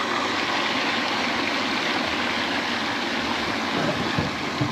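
Steady rush of splashing water from a pond fountain, with a couple of soft knocks near the end.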